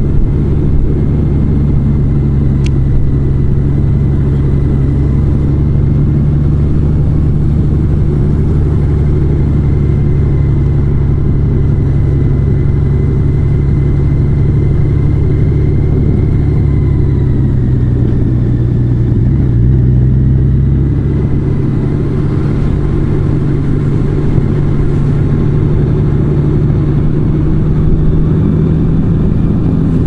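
Large motorcycle's engine running steadily under way, heard from on the bike with road noise; the engine note dips slightly about two-thirds through and then picks up again.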